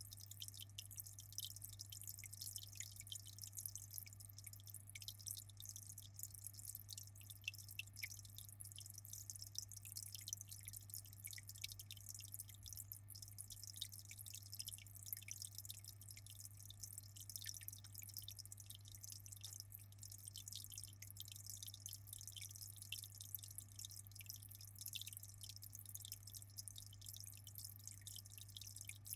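Aquarium water trickling and splashing in many small, quick drips over a steady low hum from the tank's pump.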